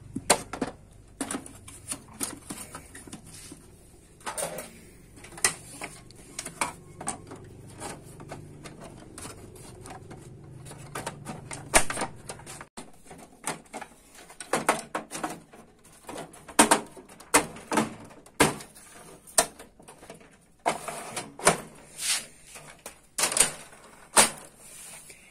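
Irregular sharp plastic clicks, knocks and snaps as a Canon iR-series copier's internal parts and covers are handled and pushed shut. A low steady hum underneath cuts off abruptly about halfway through.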